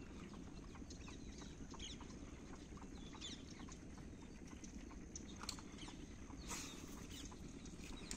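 Small birds chirping in many quick, short calls over a faint low rumble, with scattered light ticks and a brief noisy burst about six and a half seconds in.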